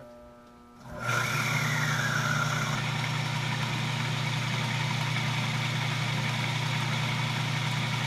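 Salvaged washing machine induction motor with a centrifugal clutch switching on about a second in and then running steadily under load, belted to a lathe, with a steady hum. A faint whine slides down in pitch just after it starts.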